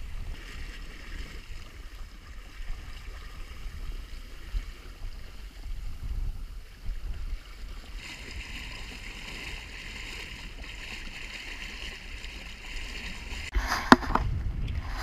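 Water rushing along the hull of a small wooden sailboat under way, over a steady low rumble of wind on the microphone. Near the end, waves slap against the bow with sharp splashes of spray.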